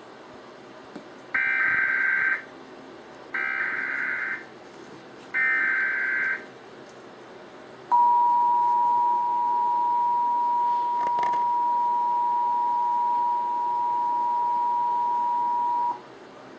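Emergency Alert System broadcast header: three one-second bursts of SAME digital data tones, each a rapid warble, about two seconds apart, then the EAS two-tone attention signal held steadily for about eight seconds before cutting off. It marks the start of an emergency alert, here a flood warning.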